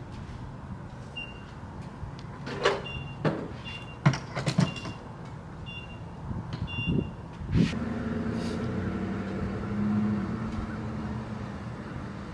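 Gas station fuel dispenser in use: short high beeps and several clicks and knocks as the pump is set up and the nozzle is handled. Past the middle comes a knock, then a steady hum as the pump runs and dispenses fuel.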